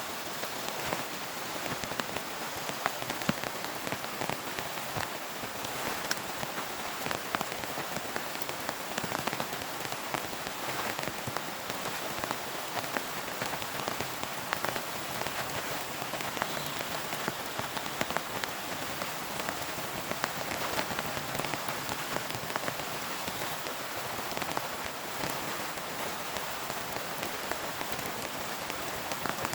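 Heavy rain falling steadily, with many sharp individual drop hits throughout.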